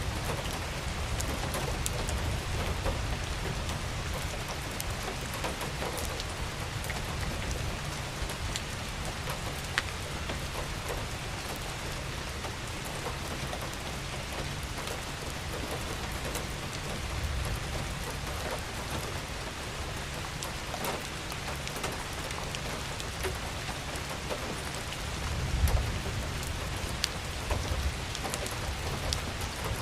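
Steady rain falling, with many individual drops ticking over a constant hiss and a low rumble underneath; a few louder drop impacts about 25 seconds in.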